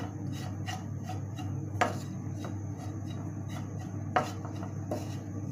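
Wooden spatula stirring grated coconut as it roasts in a metal pan: a soft, continuous scraping of the spatula through the coconut and along the pan, with two sharp knocks of the spatula on the pan about two and four seconds in.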